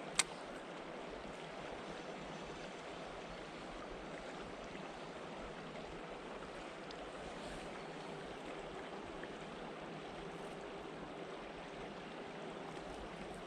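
Steady rushing of flowing canal water, with a single sharp click just after the start.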